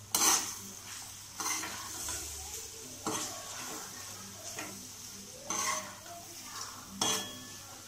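Soya chunks sizzling steadily as they fry in hot coconut oil in a metal kadai, stirred with a metal slotted spoon that scrapes and clatters against the pan about five times.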